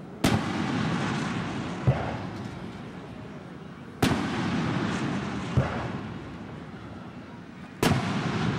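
Aerial fireworks shells bursting overhead: three sharp booms about four seconds apart, each followed by a long rumbling echo, with a softer thump between each pair.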